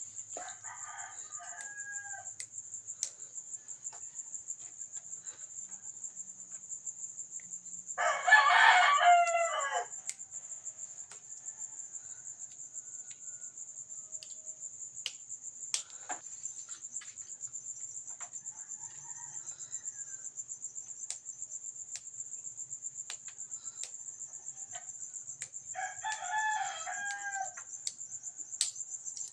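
A rooster crows loudly for about two seconds, some eight seconds in, and again more faintly near the end, with a short call right at the start. Under it runs a steady high trill of crickets.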